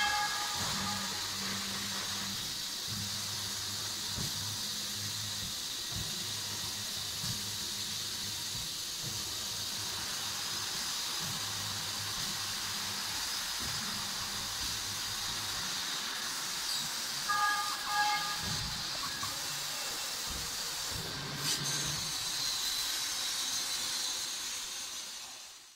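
CO2 laser cutting machine at work on wood: a steady hiss with a low motor hum that shifts every second or so, and two short pitched tones, one at the start and one about two-thirds of the way in. The sound fades out at the end.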